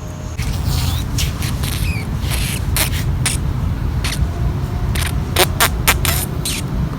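Green June beetle making a rapid, irregular series of short high-pitched squeaks and scratchy chirps, a few louder ones bunched together just past the middle, over a steady low rumble.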